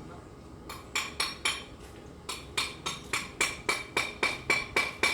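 Hammer striking metal over and over, about three to four blows a second, each with a bright metallic ring. The blows pause briefly about two seconds in.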